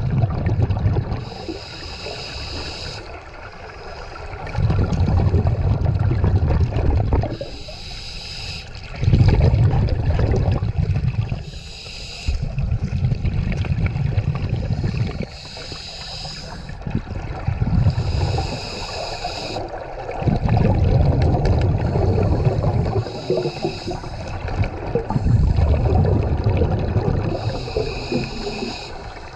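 Scuba regulator breathing heard underwater: a hiss on each inhale alternating with the low rumble of exhaled bubbles, repeated through several breaths.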